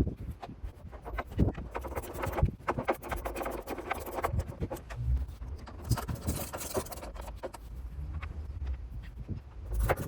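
Hands and tools working on a washing machine's plastic tub during reassembly: irregular clicks, knocks and scrapes, with a longer scraping stretch about six seconds in.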